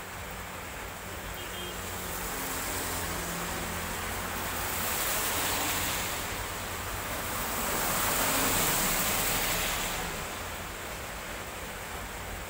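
Vehicles driving past on a wet road, their tyres hissing through the water, the hiss swelling as each goes by, loudest about five and eight seconds in, with a low engine hum in between.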